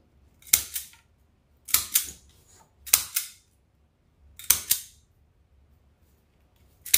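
Handheld zip tie gun clicking: about five sharp double clicks, a second or more apart, each one fastening a zip tie.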